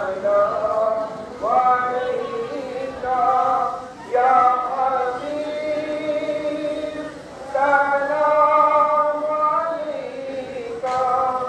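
Devotional singing: voices holding long, drawn-out notes, most phrases opening with an upward slide into the first note, with short breaks between phrases.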